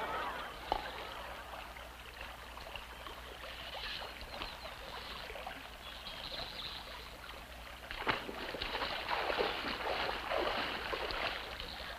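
Water splashing and sloshing, with scattered small knocks; it grows a little busier about two-thirds of the way through.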